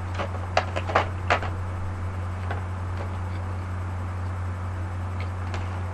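A few sharp clicks and knocks of plastic makeup cases being handled, bunched in the first second and a half, over a steady low electrical hum.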